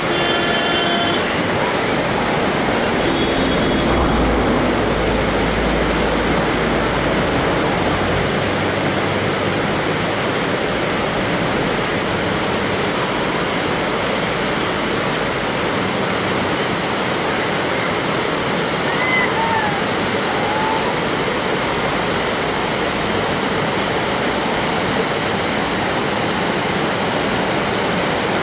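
Steady, loud rush of white water in river rapids.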